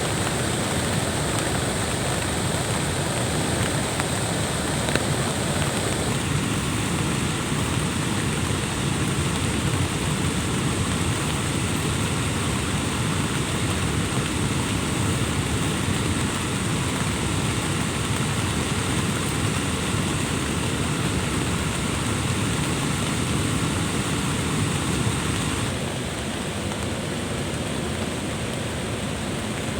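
Steady rushing water from a dam weir, an even roar with no breaks, a little quieter for the last few seconds.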